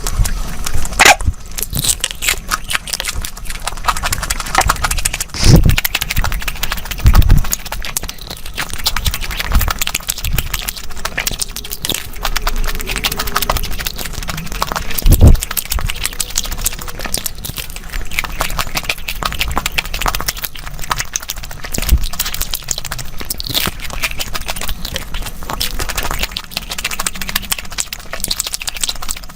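Close-miked eating: chewing and crunching with many quick wet mouth clicks, and a few heavier low knocks.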